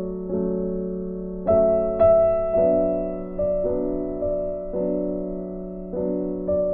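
Background music: slow, gentle electric-piano melody, with notes and chords struck every half second to a second and left to ring.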